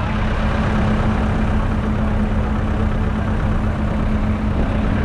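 1961 Fordson Super Major's 3.6-litre four-cylinder diesel engine idling steadily, with a constant low hum.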